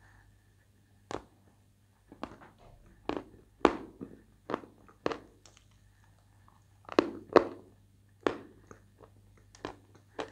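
Edible white chalk crunching between the teeth: about a dozen sharp bites and crunches, close to the microphone, in two runs with a short pause about halfway through.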